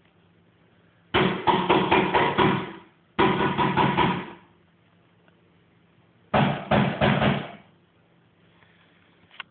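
Dwarf rabbit crunching a lettuce leaf close to the microphone: three loud bouts of rapid crunching, each lasting one to two seconds.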